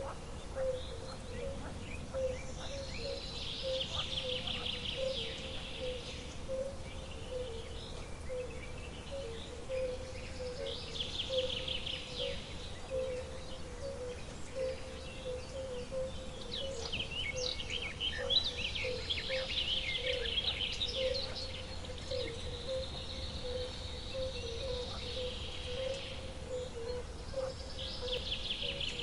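Wild nature ambience: birds sing short high trilling phrases every several seconds. Under them a low call pulses steadily two or three times a second, over a faint low rumble.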